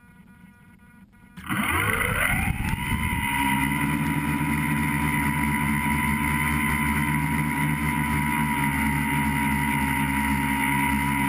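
Tricopter's three electric motors and propellers spinning up suddenly about a second and a half in, the pitch rising quickly, then running at a steady whine as it lifts off and flies, heard close from the onboard GoPro.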